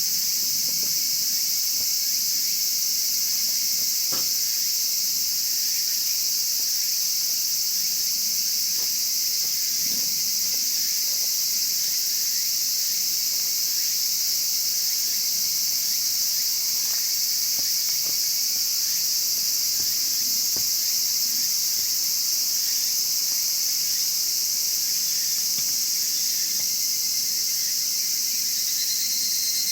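Steady high-pitched chorus of insects, with a few faint pops and crackles from a wood fire burning in a chimney-style fire pit.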